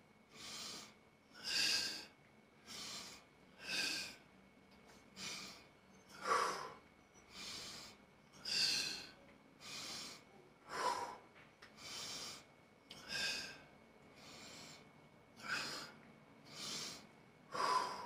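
A man's sharp, forceful breaths, about one a second in a steady rhythm, from the effort of doing dumbbell curls.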